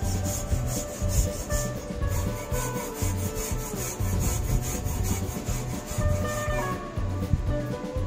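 A stiff hand brush scrubbing back and forth over rusty sheet metal inside a car body's cowl, about three strokes a second, pausing about a second before the end.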